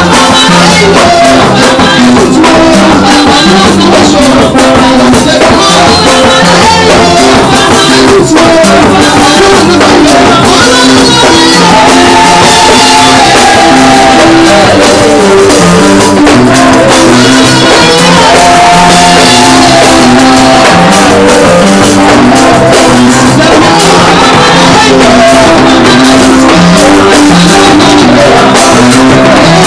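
Loud live gospel praise-and-worship music: voices singing into microphones over instrumental backing.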